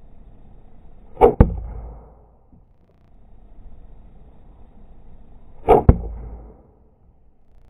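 Two slingshot shots about four and a half seconds apart. Each is a quick double crack: the bands snapping on release, then the ball smacking into the OSB target sheet.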